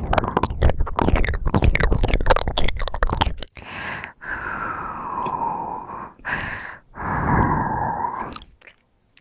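Close-miked ASMR mouth sounds: rapid wet smacking and clicking for about three and a half seconds, then a few long, heavy breaths with voice in them.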